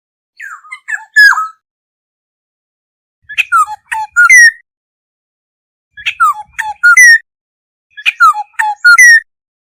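Black-hooded oriole calling: four short phrases of quick, sweeping whistled and squawky notes, one about every two seconds, with silence between them.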